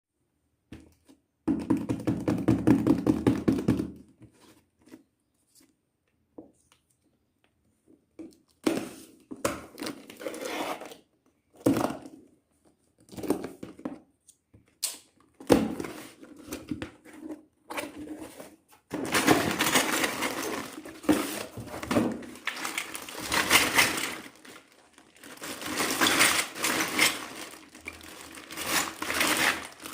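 Packaging being handled and opened: a long rasping tear near the start, then irregular crinkling and crackling of plastic wrap with small knocks, growing busier after the middle.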